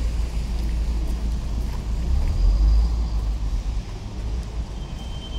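City road traffic on a wet street: cars passing with tyre noise over a heavy low rumble that is loudest a little past halfway and eases off after that.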